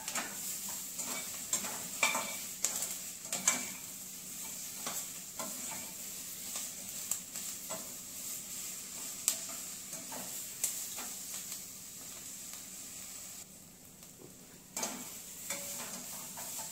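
Paneer, onion and bell pepper pieces sizzling as they are sautéed on high flame in a stainless steel kadai, with a slotted metal spatula scraping and clicking against the pan as they are stirred. The stirring clicks stop briefly near the end, then start again.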